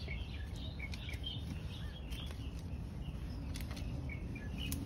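Small birds chirping in many short, high calls over a steady low outdoor rumble, with a few sharp clicks near the end.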